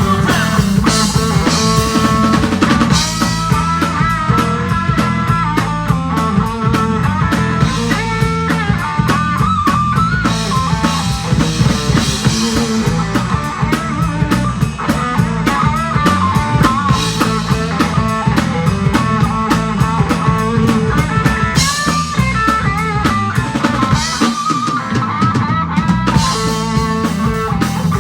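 Rock band playing an instrumental passage with no vocals: drum kit keeping a steady beat under guitar melody lines.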